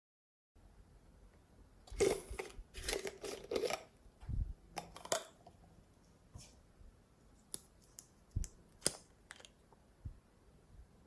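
Hands handling slime and its plastic containers: a few short crackling, rustling bursts in the first half, then scattered sharp clicks.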